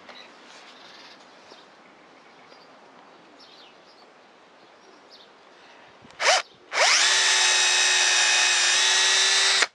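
Bosch PSB 1800 LI-2 18-volt cordless drill drilling a 3 mm hole in pine. After several quiet seconds the motor gives one short blip, then spins up and runs with a steady whine for about three seconds before stopping abruptly.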